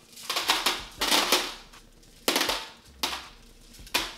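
Flat glass decorative marbles (vase-filler gems) poured from a mesh bag into a clear acrylic box already holding a layer of them, clattering in about five short bursts.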